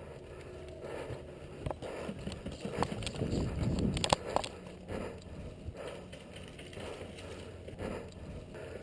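Footsteps of a player walking over the ground with gear rustling, a step about every second, and a few sharp clicks and knocks near the middle.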